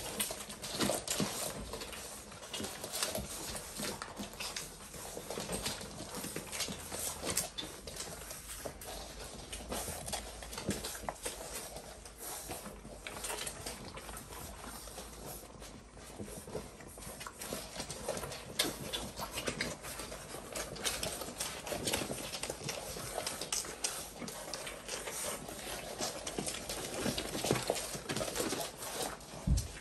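A litter of six-week-old Labrador puppies suckling at their mother's teats: a dense, continuous run of small smacks and clicks from several mouths at once.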